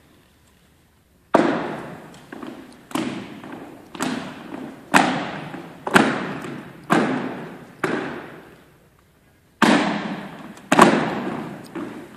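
Drill team's unison foot stomps on a wooden gym floor: sharp thuds about once a second, each ringing on in the hall's echo, starting about a second in, with a longer pause before the last two.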